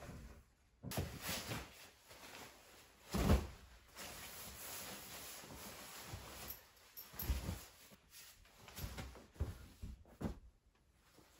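A sleeping bag being shaken out and spread over a mattress: steady rustling and swishing of its fabric, with one heavy thump about three seconds in and a few lighter thumps in the second half.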